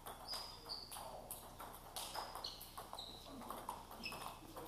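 Table tennis balls clicking off bats and tables in a rally, irregular sharp ticks with short high pings from the celluloid ball's bounces. More than one table's rally overlaps.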